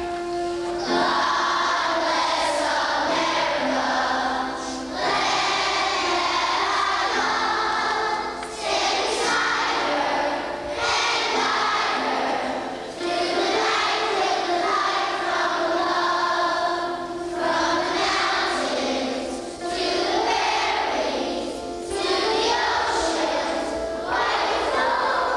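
A choir of young children singing a song with instrumental accompaniment, in phrases a few seconds long.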